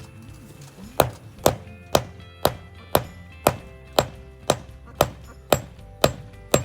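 Hammer blows on the end of a bolt, its nut left on the tip so the bolt can be reused, driving it out of a wheel hub: a steady series of sharp strikes about two a second, beginning about a second in.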